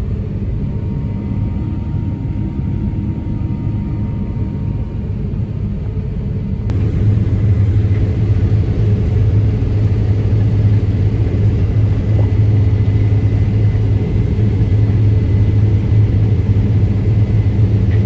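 Case combine's diesel engine running steadily at high throttle, a loud low drone that steps up louder about seven seconds in and holds there.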